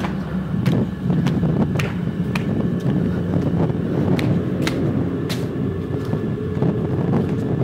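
A steady low rumble with sharp clicks or ticks, irregular but roughly twice a second.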